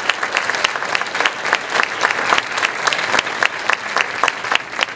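Audience applauding, many hands clapping steadily, dying away about a second after the end.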